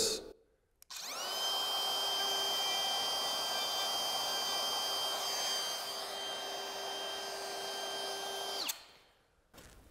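DeWalt cordless compact router with a half-inch flush-bearing bit, switched on about a second in. It spins up to a steady high whine and takes a light skimming pass through an existing hinge mortise, shaving only a little wood. It is switched off near the end and winds down quickly.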